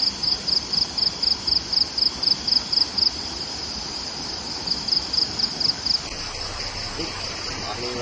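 An insect chirping in a quick train of short high-pitched pulses, about five a second, pausing about three seconds in and chirping again for about a second near the five-second mark, over a steady outdoor hiss.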